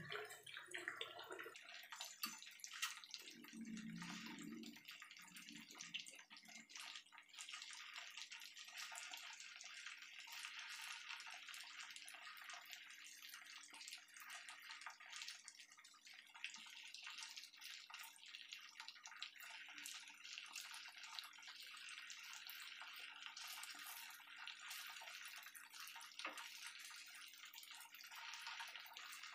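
Chicken pieces shallow-frying in hot oil in a frying pan: a faint, steady sizzle with fine crackling throughout.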